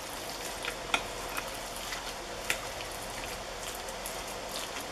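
Metal spoon mixing ground chicken with minced garlic and ginger in a glass bowl: a steady wet squishing, with a few light clicks of the spoon against the glass.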